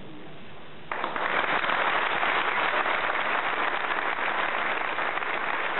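Audience applauding: clapping breaks out suddenly about a second in and carries on steadily.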